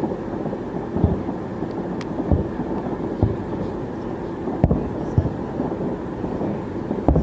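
Fireworks display: a continuous low rumble of bursts, with sharper booms going off about every second or two.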